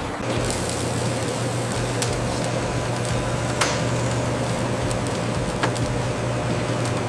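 Factory machinery running: a steady mechanical hum with a low drone, and a couple of faint clicks.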